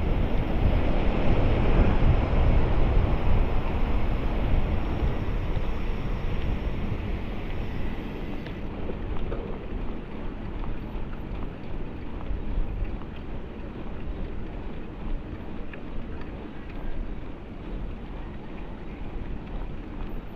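Wind buffeting the action camera's microphone: a low, unsteady rush that eases a little after about eight seconds.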